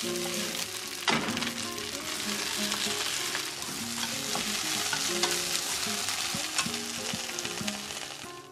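Chopped leafy greens sizzling in a hot frying pan as they are stir-fried and turned with long cooking chopsticks, with a sharp clack about a second in.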